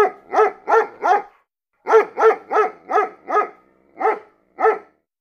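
A dog barking repeatedly at about three barks a second: a run of four, a short break, a run of five, then two more spaced-out barks, each bark dropping a little in pitch.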